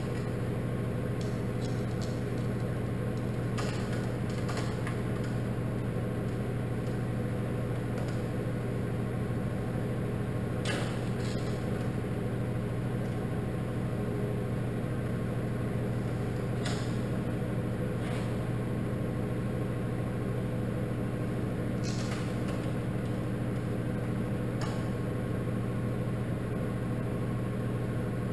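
Steady low machine hum, like a shop fan or heater running, with about half a dozen light clicks and taps from hand work on door hardware scattered through.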